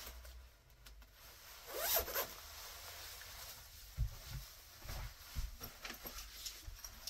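A zipper pulled open or shut in one quick stroke about two seconds in, rising in pitch, followed by a few soft thumps of things being handled.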